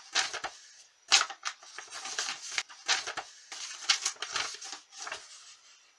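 A sheet of paper being bent and unfolded by hand: a run of crinkling, crackling rustles that stops about five seconds in.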